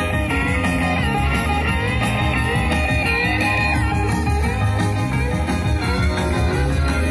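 Background music: a guitar-led rock track playing steadily.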